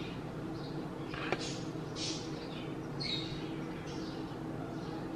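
Small bird chirping repeatedly, short high chirps that fall in pitch, over a faint steady hum, with a single sharp click a little over a second in.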